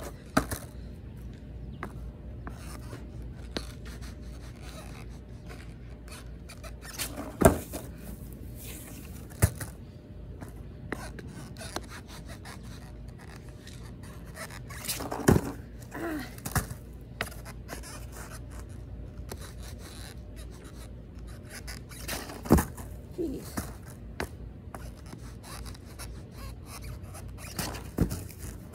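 Skateboard kickflip attempts on grass: several sharp knocks as the board is popped and comes down with the skater's shoes, spaced several seconds apart, with scraping and rustling between.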